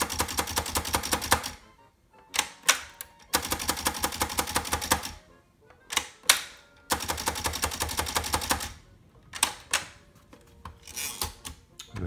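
1971 Sears Newport manual typewriter being spaced along the carriage and having its tab stops set: three runs of rapid, even clicking, each about two seconds long, each followed by a couple of separate clacks from the Set key.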